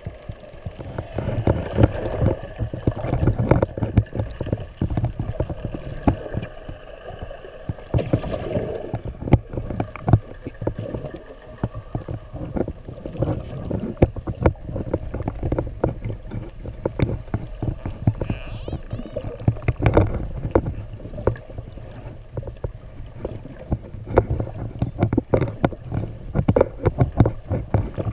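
Underwater sound through a snorkeler's camera housing: a low rumble of moving water with many irregular knocks and a faint steady hum. About two-thirds of the way in come a few faint rising whistles from spinner dolphins.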